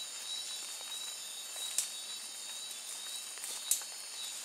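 Steady high-pitched chorus of night insects in tropical forest. Two brief sharp clicks stand out, about two seconds in and near the end.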